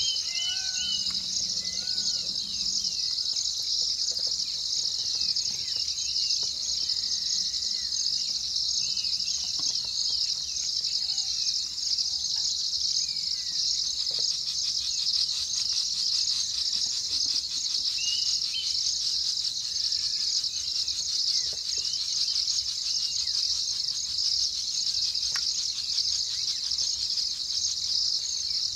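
A steady, unbroken chorus of insects shrilling high, with birds chirping over it: a run of short arched notes in the first few seconds and scattered calls later.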